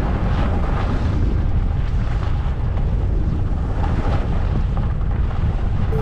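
Wind buffeting a helmet-mounted action-camera microphone during a downhill ski run, a loud, steady low rush. Under it is the hiss and scrape of skis running over groomed snow.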